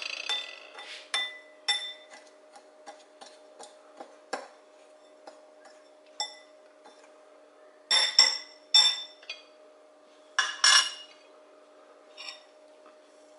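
Metal cutlery clinking and tapping against ceramic and glass bowls while a croqueta is rolled in breadcrumbs with a fork: a run of light, separate clinks, with louder ringing clusters about eight seconds in and again near eleven seconds, over a faint steady hum.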